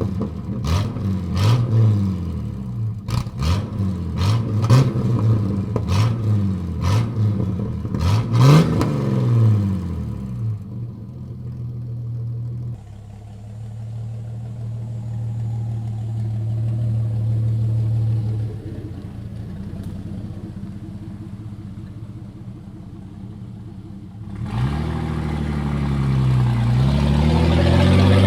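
1989 Jeep Cherokee XJ's 4.0L straight-six running through a straight-piped exhaust with the muffler deleted. It is blipped in quick revs for about the first ten seconds, settles to a steady run, then drops to idle. Near the end it revs up loudly again.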